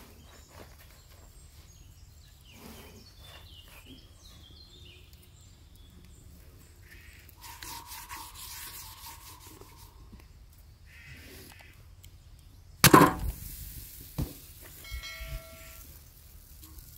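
Quiet rural outdoor ambience with a faint low hum and scattered small bird chirps. A single sharp, loud knock comes about thirteen seconds in, a softer one follows a second later, and a short pitched animal call comes soon after.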